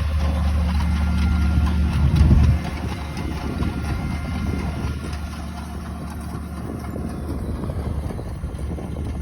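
An engine running steadily with a low hum, louder for the first two and a half seconds, then settling lower.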